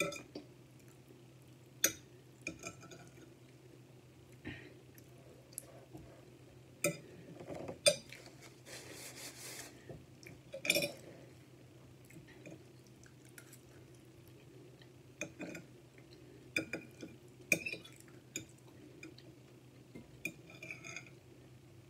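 Metal fork clinking and scraping on a dinner plate now and then, about half a dozen sharp single clinks, with quiet chewing in between, over a low steady hum.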